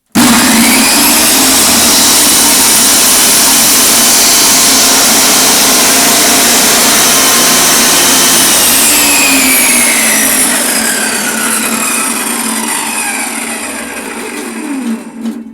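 Hitachi table saw switched on and running at full speed with no load. About eight seconds in it is switched off and spins down, its whine falling steadily in pitch and fading until it stops near the end.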